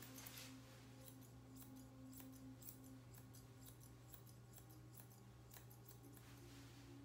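Faint, quick snips of grooming scissors cutting through a poodle puppy's coat, irregular, a few snips a second, over a low steady hum.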